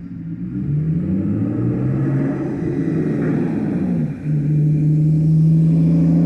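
Motor vehicle engine accelerating with its pitch rising, then dropping about four seconds in and holding steady.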